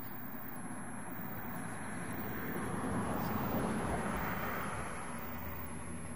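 A passing vehicle: a rushing road noise that swells to a peak about halfway through and fades away, over a steady low hum.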